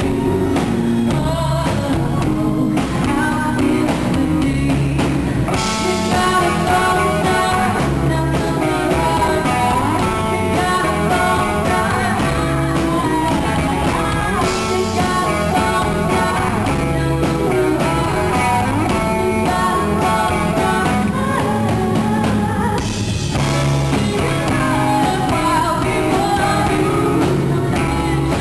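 Live band music: a woman singing into a microphone while playing electric guitar, backed by the band.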